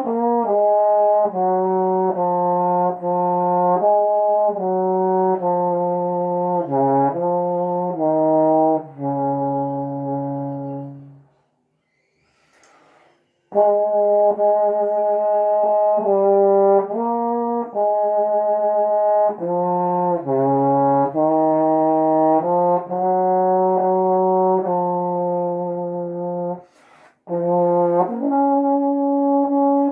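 Solo trombone playing a slow hymn melody, one held note after another. It pauses for about two seconds near the middle and breaks off briefly again near the end before playing on.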